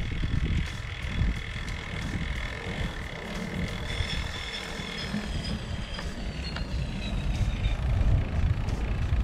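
Wind buffeting the microphone on a bicycle ride, with faint high whining tones, one sliding slowly down in pitch about halfway through.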